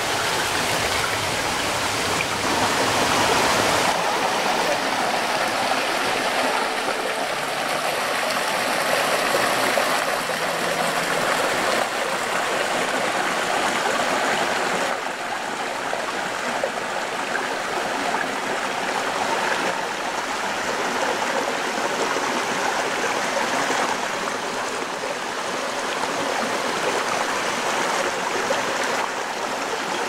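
Shallow forest stream running over stones: a steady rush of water.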